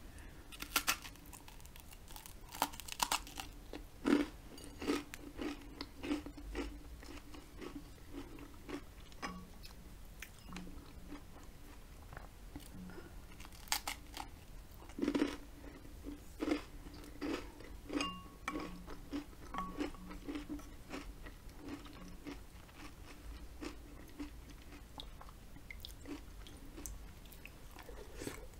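A person chewing and crunching buttered toast with jam close to the microphone, in irregular crisp bites.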